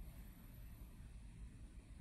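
Near silence: room tone with a faint low rumble.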